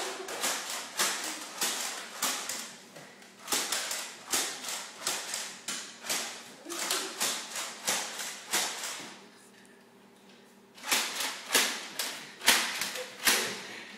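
A fast run of sharp knocks and thumps from children playing on a hardwood floor, about three a second, stopping about nine seconds in and starting again a couple of seconds later with a few louder knocks.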